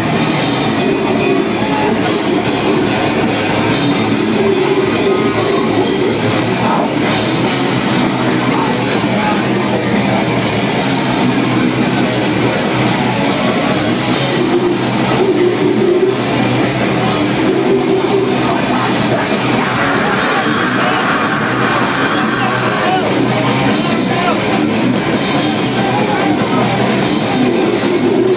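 Death metal band playing live: distorted electric guitars and a drum kit, loud and continuous, picked up by a phone in the crowd.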